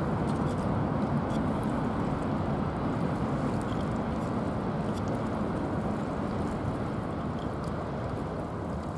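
VL15 DC electric locomotive running light across a steel truss railway bridge: a steady low rumble that slowly fades as it draws away.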